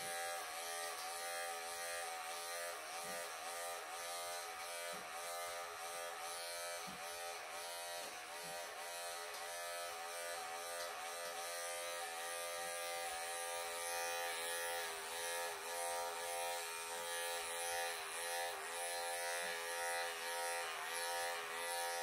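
Wahl electric pet clippers buzzing steadily as they shave a Persian cat's long coat. The pitch dips briefly every second or so as the blade is pushed through the fur.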